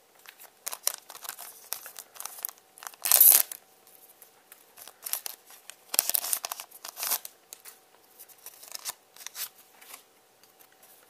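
Foil trading-card booster pack wrapper crinkling and tearing as it is opened, in irregular bursts; the loudest tear comes about three seconds in, with another long crinkling stretch around six seconds.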